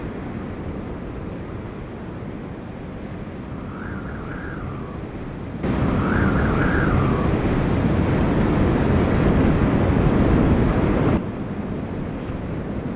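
Hurricane wind and rushing storm-surge floodwater, a steady rush of noise. About five and a half seconds in it jumps to a louder, deeper blast of wind for about five seconds, then drops back. A short wavering whistle rises and falls twice in the first half.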